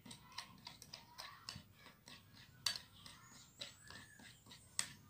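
A metal spoon clinking and scraping against a glass bowl while stirring thick chocolate batter: a quick, irregular run of light ticks, with one sharper click near the end.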